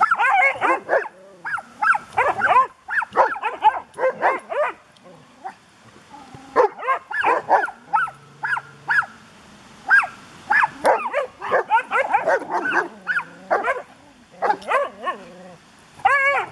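Dogs barking and yipping in play: rapid bursts of short, high-pitched barks with brief pauses between them.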